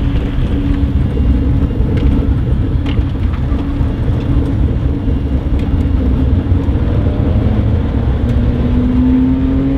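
Cabin noise of a small kei car driving on PVC-ringed rear tyres: a steady engine drone over a dense low rumble. The engine note rises near the end.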